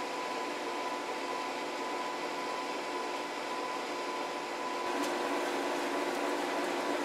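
Blower running on a freshly lit coal forge fire: a steady motor hum under a hiss of forced air and flame.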